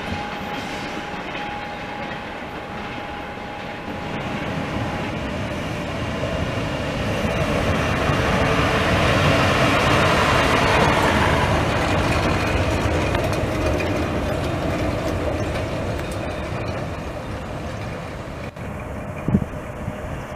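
Electric trains on station tracks: a steady tone for the first few seconds, then a ZSSK class 163 electric locomotive running past close by, its wheels rumbling on the rails, loudest about ten seconds in and fading afterwards. A sharp knock sounds near the end.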